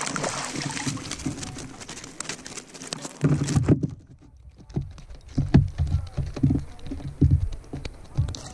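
A spinning reel cranked with fine rapid clicking while a rainbow trout is played on the line from a kayak. From about three seconds in come irregular dull knocks and bumps against the kayak as the fish is brought to the net.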